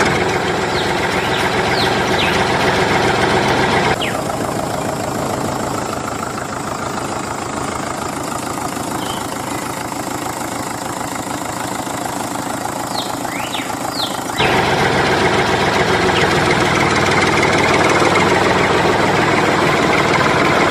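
A tractor engine running steadily. Its sound changes abruptly twice, about four seconds in and again near fourteen seconds, and a few short high chirps come through.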